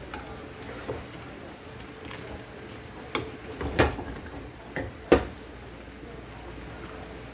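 Kitchen clatter: a handful of sharp knocks and clinks of utensils against pots, the loudest a little under four and a little over five seconds in, over a faint steady hum.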